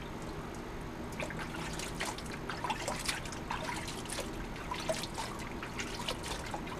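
Water trickling and splashing off a sluice cleanup mat into a gold pan of water as gold concentrate is rinsed out of the mat, with many small irregular drips and splashes.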